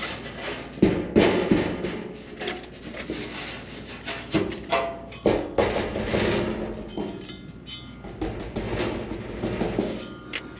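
Irregular knocks, clanks and scraping of loose metal parts being handled on the sheet-metal heat shield under a motorhome floor, with an occasional brief metallic ring.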